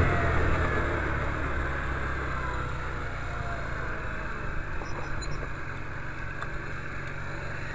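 Scooter engine heard while riding, its sound falling away over the first few seconds as the scooter slows, then running quieter and steady. It runs after its clogged filter mesh on the air-filter pipe has been cleaned.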